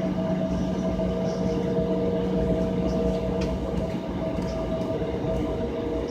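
Airliner cabin noise while waiting for departure: the engines and cabin systems make a steady hum of several held tones over a low rumble, even in level, with a few faint ticks.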